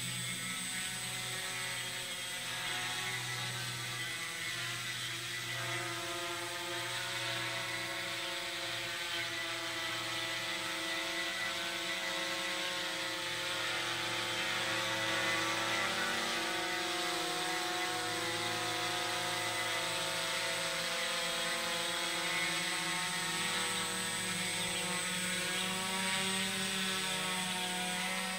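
Small aircraft in flight, its motor and rotor running steadily, the pitch wavering slightly up and down.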